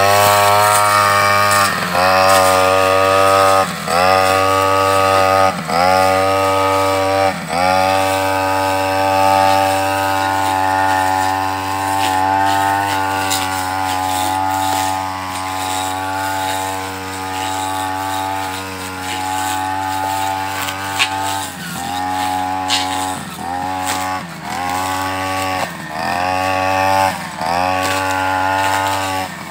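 Backpack brush cutter engine running at high revs with its metal blade cutting thin grass and brush. The engine note dips and picks up again several times, a few times near the start and in quick succession in the last third, with a steady stretch in the middle.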